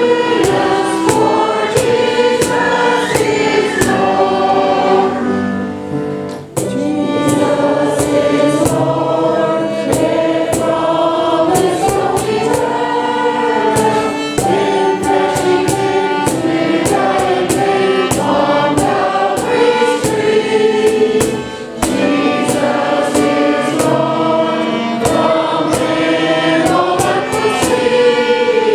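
Church congregation and choir singing a hymn together with instrumental accompaniment, with short breaths between lines.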